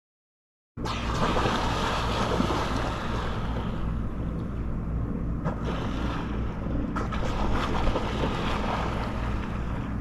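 A boat's engine running with a steady low drone, under water rushing past the hull and wind buffeting the microphone. The sound cuts in suddenly just under a second in.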